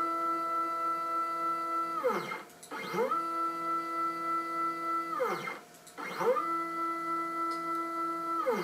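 Stepper motors of a home-made CNC router whining at a steady pitch as they drive the axes. Twice, about two and five and a half seconds in, the whine slides down to a stop and rises again as the axis slows, reverses and speeds back up, and it begins to slide down again near the end.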